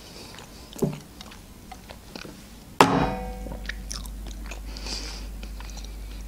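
A person chewing a mouthful of imitation crab sticks with the mouth closed, in small wet clicks, with one short louder vocal sound from the throat about three seconds in.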